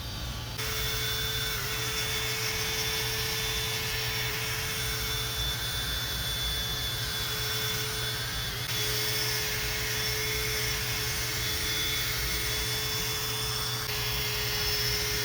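Drill spinning a buffing pad against a plastic headlight lens, polishing it with rubbing compound: a steady motor whine with a few brief dips.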